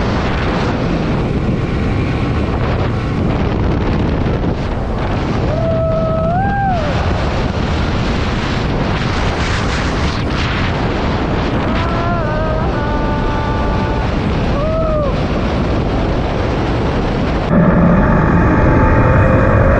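Wind blasting the microphone over motorcycle engine and road noise while riding at speed. A few short pitched tones rise and fall about six, twelve and fifteen seconds in, and near the end the engine note comes up louder and clearer.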